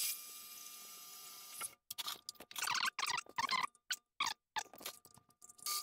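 Short metallic clicks, rattles and scrapes as a twist drill is fitted into a milling machine's drill chuck and the chuck is tightened. A steady hiss is heard for the first second and a half.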